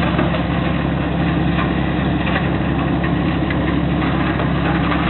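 A boat's engine running steadily, heard from on board.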